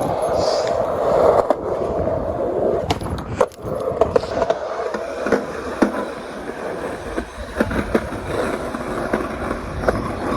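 Skateboard wheels rolling on pavement: a continuous rumble with scattered clacks and knocks as the board rides over the ground.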